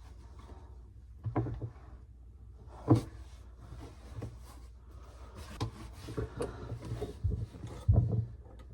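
Irregular knocks and clatters of tools and parts being handled, the loudest about three seconds in and again near the end.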